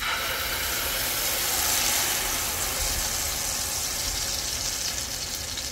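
Wet blended spice paste for mole hitting very hot oil in a pan and frying with a loud sizzle that starts suddenly, peaks about two seconds in, then slowly eases.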